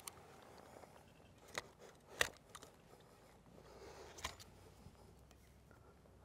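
Old caulk being picked and pulled off by hand around a PVC vent pipe on a metal roof: a few sharp clicks and taps, the loudest a little after two seconds in, over a faint background.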